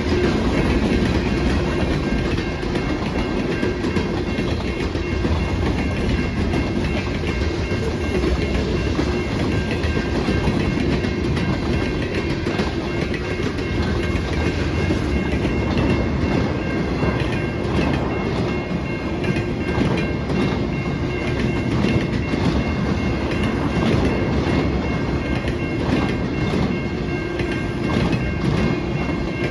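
Freight train cars rolling past at close range: a steady rumble with wheels clacking over the rail joints. A few faint steady high tones sit over it throughout.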